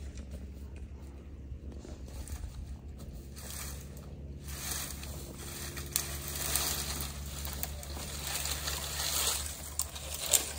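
Rustling and crackling of brush and dry branches being pushed through and handled, with a couple of sharper snaps and a faint steady low hum underneath.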